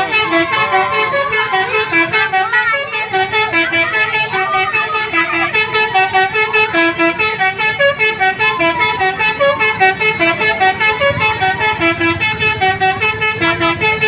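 Indonesian 'telolet' bus horn playing a fast, repeating multi-note melody, the notes stepping up and down several times a second without a break.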